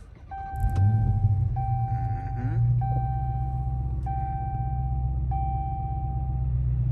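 Supercharged 6.2-litre HEMI V8 of a Dodge Challenger SRT Hellcat Redeye starting up just under a second in, then settling into a deep, steady idle on freshly changed oil. A dashboard warning chime repeats about once a second over the engine, stopping near the end.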